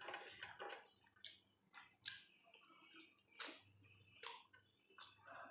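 Faint, irregular clicks and smacks of someone eating chicken curry and roti by hand: closed-mouth chewing and fingers picking food from a metal plate.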